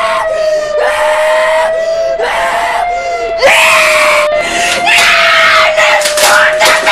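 Cartoon characters screaming, one scream after another and louder from about halfway through, layered over a tornado warning siren holding one steady, slightly wavering tone.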